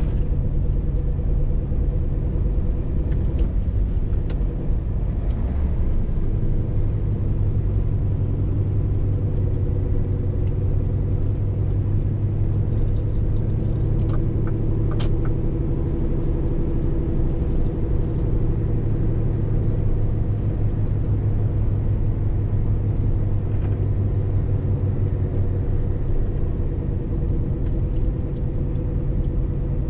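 Scania R450 lorry's 13-litre six-cylinder diesel engine running steadily on the move, with road rumble and a short click about halfway through.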